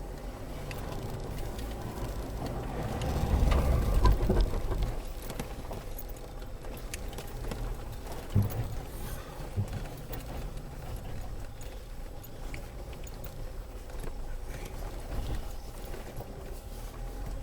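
Land Rover Freelander 2 heard from inside the cabin as it crawls over rocks at low revs: a steady low engine and drivetrain rumble that swells for a second or two a few seconds in, with a couple of sharp knocks from the body and suspension about halfway through.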